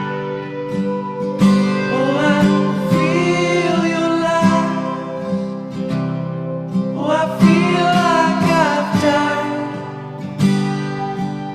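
Music: strummed acoustic guitar, with a voice singing two long phrases, the first starting about two seconds in and the second about seven seconds in.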